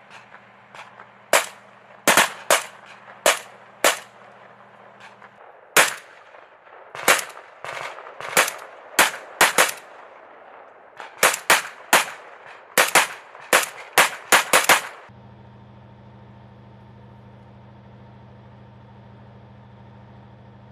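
Kalashnikov-pattern rifles firing single shots and quick strings of two or three, at irregular intervals, for about fifteen seconds, then stopping. A steady low engine hum runs beneath the shots at first and is left alone once the firing stops.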